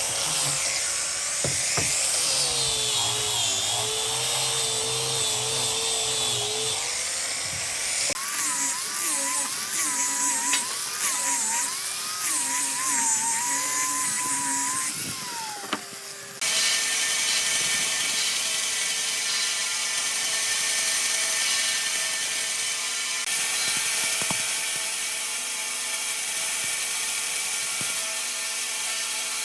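Small electric power tools working wood, heard in three edited clips with abrupt cuts about 8 and 16 seconds in. In the first two the motor's pitch wavers up and down as the tool bites and is eased off; in the last a motor runs steadily.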